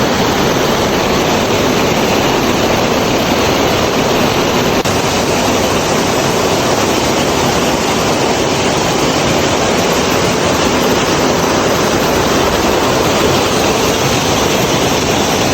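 A waterfall's water rushing in a loud, steady, unbroken roar.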